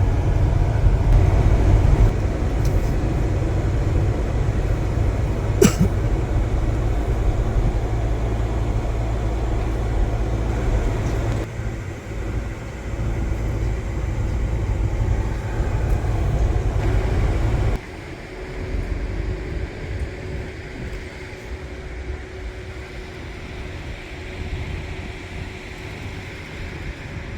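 Car driving noise: a steady low rumble, louder for the first ten seconds or so and quieter after abrupt drops near twelve and eighteen seconds, with one sharp click about six seconds in.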